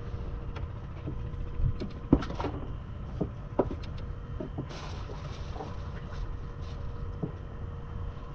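Boat engine running steadily with a low rumble and a faint constant hum. Over it come light clicks and taps from fishing line and tackle being handled, the sharpest about two seconds in.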